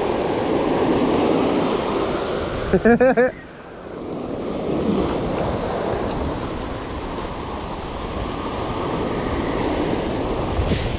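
Surf breaking and washing up the beach, with wind buffeting the microphone. About three seconds in, a person gives a short, loud wordless cry.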